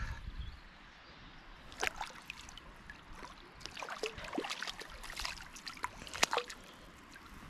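A hooked wild brown trout thrashing at the water's surface, giving irregular short splashes and slaps of water as it is reeled in.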